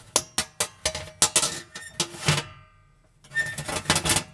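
Irregular metal clanks and knocks as a replacement oven bake element is pushed back into the oven's rear wall, then a rough metal scrape about three seconds in.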